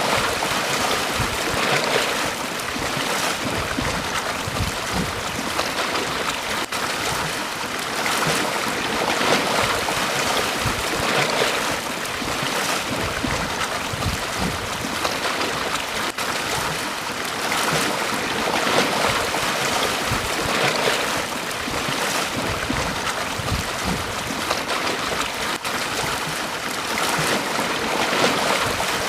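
Waves washing onto a beach: a continuous rush of surf that swells and eases every few seconds.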